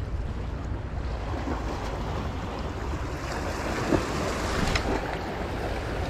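Wind buffeting the microphone over the steady wash of sea waves, with a couple of faint clicks about four seconds in.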